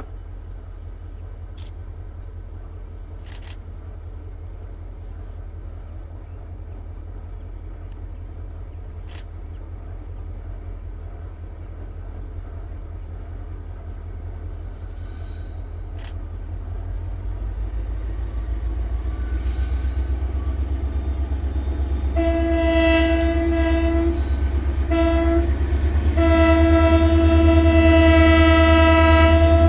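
Locomotive approaching, its low rumble growing louder, then its horn sounding three times: two short blasts and a long one.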